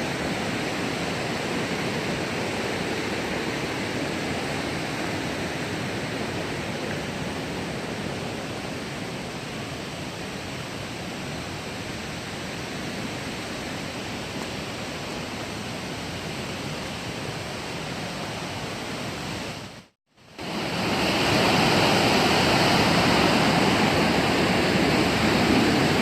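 Steady rush of a small hot-spring waterfall. It breaks off briefly about twenty seconds in, then comes back louder.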